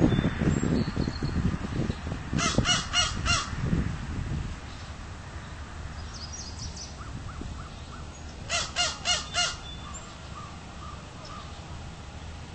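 American crow cawing in two runs of four evenly spaced caws, the first about two seconds in and the second about eight and a half seconds in. A low rumble sits under the first four seconds.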